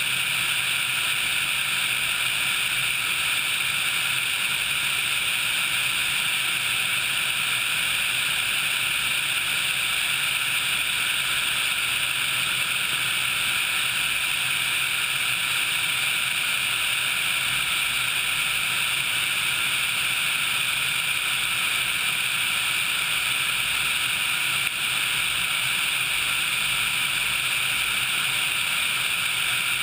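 Steady rushing noise of a Sikorsky HH-60 Pave Hawk helicopter in flight, its engines and rotor mixed with airflow over a camera mounted on the outside of the airframe.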